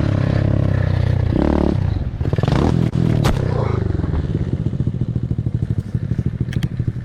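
Volkswagen GLI's turbocharged 2.0-litre four-cylinder engine revving through its exhaust: three quick blips of the throttle in the first four seconds, then settling back to an even, pulsing idle.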